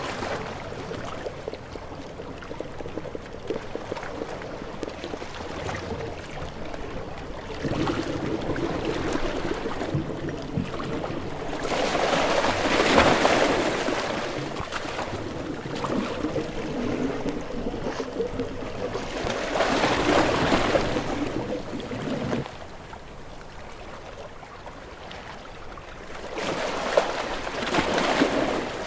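Moving water, splashing and rushing, swelling into louder washes three times with quieter stretches between.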